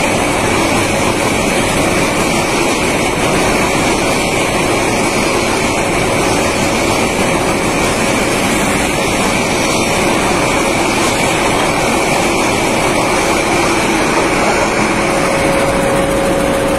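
Bangladesh Railway intercity passenger coaches running past close by: a loud, steady noise of wheels on the rails with no let-up. A steady hum joins near the end.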